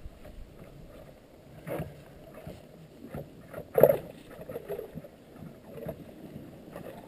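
Close handling sounds of ice-fishing gear: scattered knocks and rustles, with one sharper, louder knock a little before halfway through.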